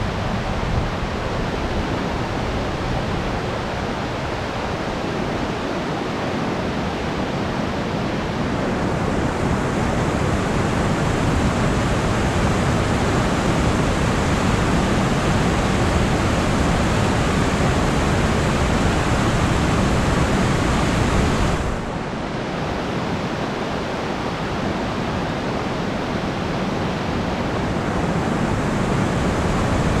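River water rushing over a low-head dam and churning in the white water below it: a steady, dense roar that swells slightly and dips suddenly about two-thirds of the way through.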